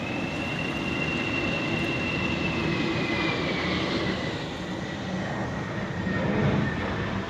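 Airliner on its landing pass going by, its engines a steady rumble with a high whine that slowly drifts down in pitch as it passes, over gusty wind noise.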